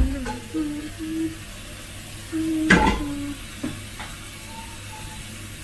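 Salmon fillets sizzling with a faint steady hiss in a ridged grill pan. There is a sharp clatter about three seconds in and a few lighter clicks after it. Short hummed notes come and go over the top.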